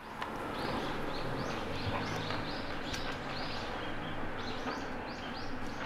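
Birds chirping, many short repeated chirps, over a steady low outdoor background rumble.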